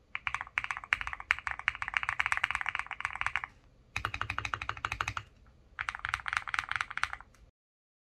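Fast typing on a custom mechanical keyboard set up for a creamy, marbley sound: quick runs of key clacks in three bursts, with short pauses between them.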